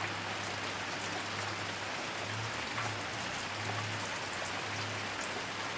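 Steady light rain falling on wet ground and water-filled trenches, with scattered single drops heard as faint clicks.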